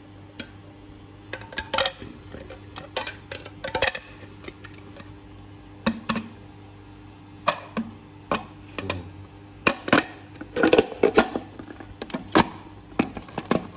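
Hard plastic parts of a baby food processor being handled and fitted together: an irregular run of clicks and knocks, busiest near the end.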